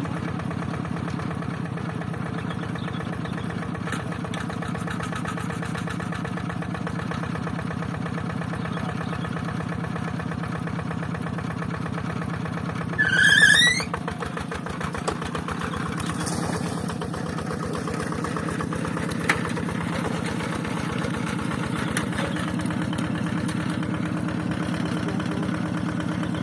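Rice-field tractor engine running steadily with an even firing rhythm. About halfway through, a brief, loud, high squeal sounds as a quick run of rising chirps.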